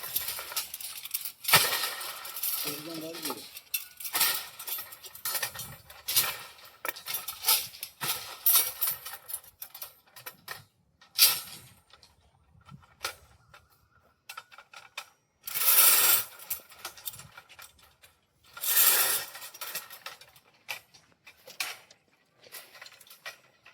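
Metal clanking and clinking: steel pieces knocking against each other in a welding workshop, in many sharp knocks with a few longer noisy bursts, and some voices.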